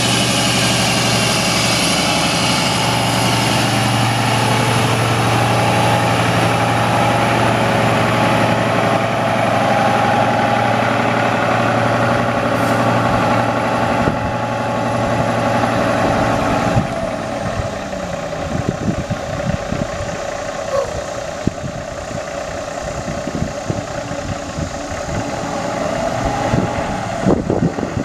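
Cummins 14.9-litre inline-six diesel in a semi truck running at raised revs with a steady drone and a high whine. About two-thirds of the way through, the revs drop and it settles to a lumpy idle with diesel knock.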